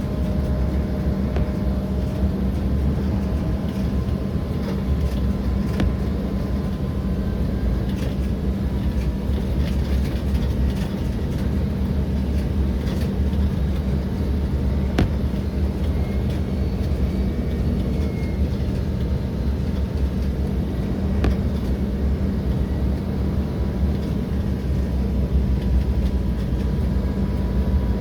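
Steady cabin noise of an Embraer 175 in flight: the even hum of its turbofan engines and rushing air, with a faint steady high tone above it and a few small clicks.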